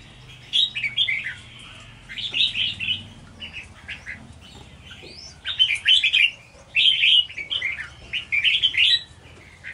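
Red-whiskered bulbul singing: a string of short, quick chirping phrases with brief pauses between them.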